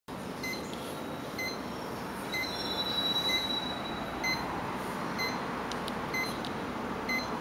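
A short electronic beep repeating about once a second over a steady background hiss, with a longer high tone lasting about a second and a half near the middle.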